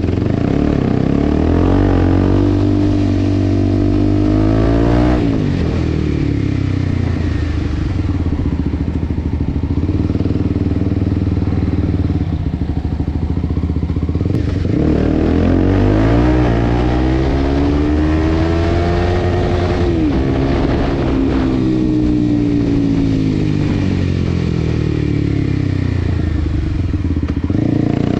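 Kawasaki Ninja 250 with an Akrapovic exhaust and no dB killer, ridden: a loud exhaust note that climbs in pitch under acceleration and drops sharply off the throttle about five and about twenty seconds in, then sinks slowly with another drop near the end. At modest road speeds it sounds like a bike going much faster.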